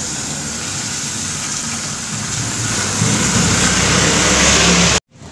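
An engine running steadily, growing a little louder about three seconds in and cutting off suddenly near the end.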